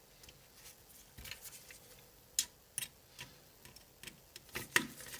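Faint, irregular small clicks and ticks of a PH000 precision screwdriver working a tiny screw out of an iPhone 6s's metal display-connector bracket. The sharpest clicks come a little over two seconds in and again near the end.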